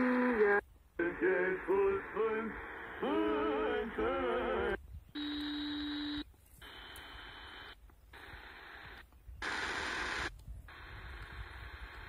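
Sangean 909 portable radio on longwave, playing a station's programme with a voice for the first few seconds, then going silent for a moment each time a new frequency is keyed in. The following channels give a steady tone, then static hiss with a faint whistle from weak or empty frequencies.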